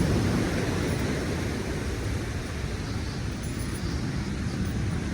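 Wind buffeting the microphone outdoors: a steady, low rushing noise.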